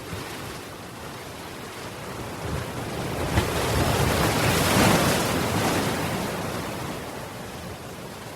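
Ocean wave rising, breaking and washing up on the shore in one long swell that peaks in the middle and fades away, over a steady surf hiss.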